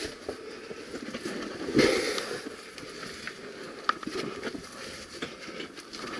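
Scuffing and crunching of someone moving over loose rock rubble on a mine passage floor, with scattered sharp clicks of stones knocking together and a louder scrape about two seconds in.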